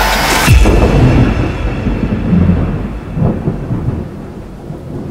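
Rising electronic music sweeps cut off about half a second in with a sudden low boom. Thunder then rumbles on with a hiss of rain, slowly fading.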